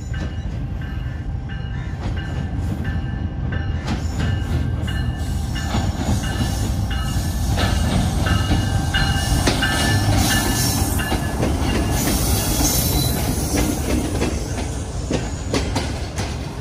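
Diesel locomotive pulling a passenger train slowly into a station, its engine rumbling as it comes alongside. It grows louder as it draws level, then the coaches roll past with wheel clatter and high metallic squeals as the train slows to stop.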